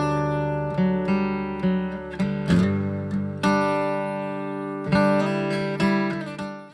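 Acoustic guitar music, strummed and plucked chords in a steady rhythm, fading out at the end.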